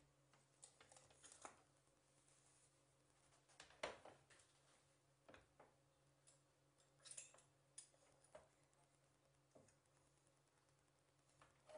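Faint clicks and knocks of a cast-iron stovetop toaster being handled and shut on a gas burner, the loudest knock about four seconds in, over a low steady hum.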